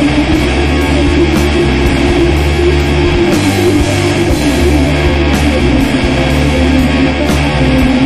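Loud rock music with guitar.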